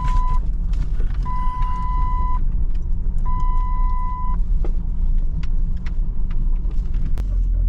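Vehicle engine running with a steady low rumble, while a warning buzzer sounds long beeps at one pitch about two seconds apart, stopping a little before halfway through; a few light clicks and rattles over it.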